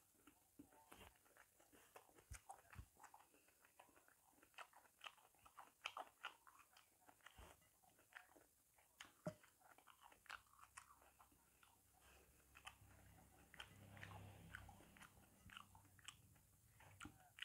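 Faint, close-up chewing and wet mouth sounds of someone eating ripe jackfruit bulbs: soft irregular smacks and clicks, with the sticky flesh being pulled apart by hand.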